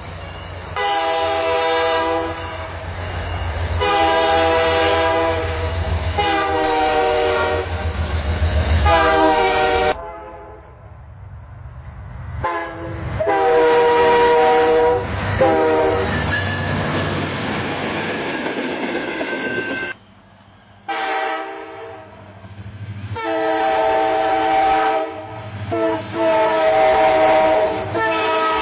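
A locomotive air horn blows a series of blasts, each about one to two seconds long, as a train passes with a low rumble. The sound is cut abruptly twice between separate recordings, and each new recording brings more horn blasts.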